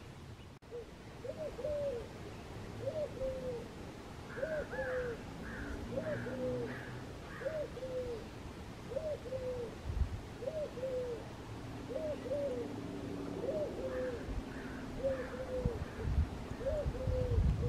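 A dove cooing: short two-part coos, repeated steadily about every second and a half. Fainter, higher bird calls come in twice, and there are low rumbles on the microphone near the end.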